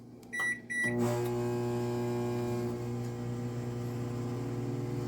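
Toshiba ML-EC42P countertop microwave oven: two short keypad beeps, then about a second in the oven starts running with a steady electrical hum.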